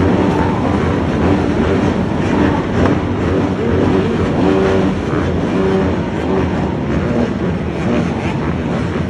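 Engines of several dirt bikes and quad bikes running together, a loud, steady mix of engine noise.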